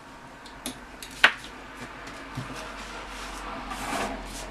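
Small sharp clicks and taps of metal parts being handled as a record-player turntable motor is taken apart, the loudest click about a second in, with a soft rubbing sound near the end.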